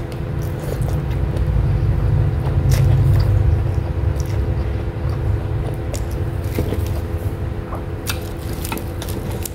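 Close-miked chewing of stir-fried water spinach (kangkung belacan), with wet mouth clicks and smacks scattered through. Underneath runs a steady low rumble and hum.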